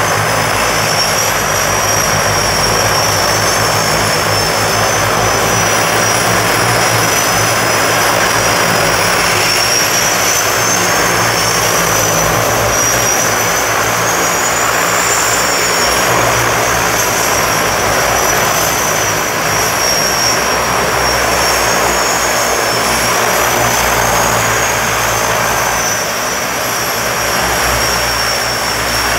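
de Havilland Canada DHC-6 Twin Otter floatplane's two PT6A turboprop engines running at low power as it taxis in on the water: a high turbine whine that wavers gently up and down over a steady propeller drone.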